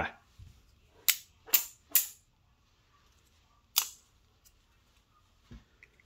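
Small titanium multitool pieces snapping onto a magnetic tool stack: sharp metal clicks, three in quick succession about a second in, then one more near four seconds.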